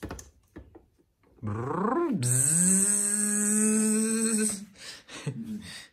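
Yorkshire terrier howling at a running coffee maker: one long howl that rises in pitch, then holds steady for about two seconds with a hiss alongside, before breaking off.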